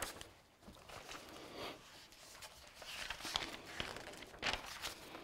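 Paper pages of a large handwritten register rustling as they are handled and turned, in short irregular bursts, the loudest about three and a half and four and a half seconds in.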